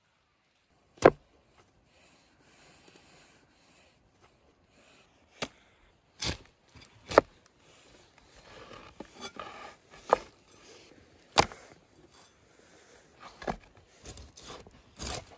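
A knife cutting roasted potatoes and crispy tandoor-roasted lamb ribs on a wooden board: several sharp knocks of the blade against the board, with softer crackling as the crisp rib rack is torn and cut.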